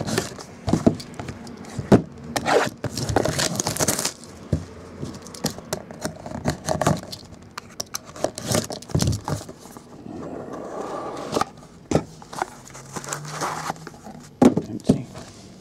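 A sealed trading-card box being opened by hand: wrapping rustling and tearing, a folding knife slitting the box's seal sticker, and cardboard and hard plastic card holders scraping and clicking as the lid comes off and the cards are lifted out.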